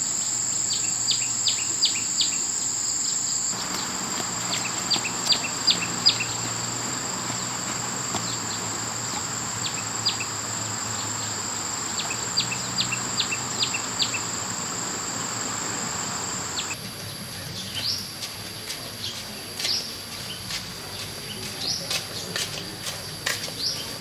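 Insects droning steadily in a high pitch, with repeated short bird chirps in quick runs of three to five. About 17 seconds in, the background cuts to a quieter one with a higher, broken insect tone and scattered chirps.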